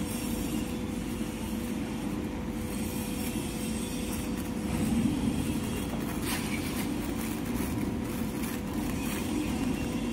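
Tissue-paper log saw cutting machine running: a steady mechanical drone with a constant hum and a few faint ticks, getting a little louder about five seconds in.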